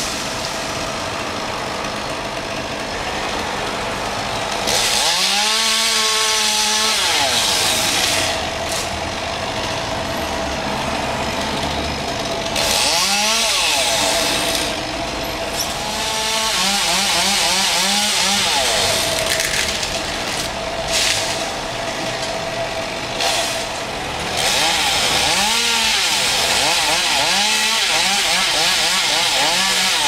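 Chainsaw revving up to full speed four times for a few seconds each while cutting wood, dropping back to idle in between.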